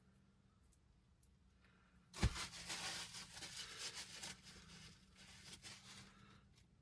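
A sharp knock about two seconds in, then about four seconds of rustling, crinkling handling noise that fades out.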